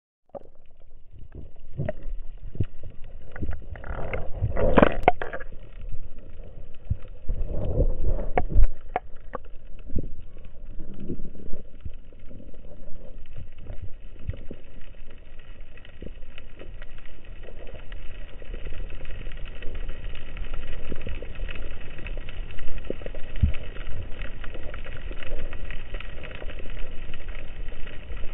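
Underwater sound through an action camera's waterproof housing: a muffled water rush with scattered knocks and clicks. The knocks and rushes are loudest in the first ten seconds, then it settles into a steady hiss with small clicks.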